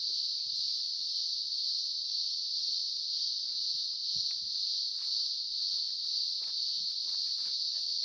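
A steady, high-pitched chorus of insects that never lets up, with a few faint knocks and rustles.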